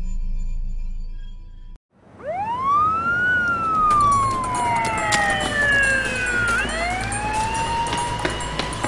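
A low ambient music drone cuts off about two seconds in. After a brief silence a siren wails in: its pitch climbs quickly, falls slowly, then climbs again, over a steady rushing background.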